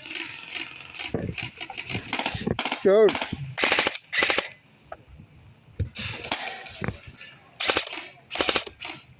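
Airsoft gun firing a string of single shots, each a sharp crack, spaced roughly half a second to a second apart.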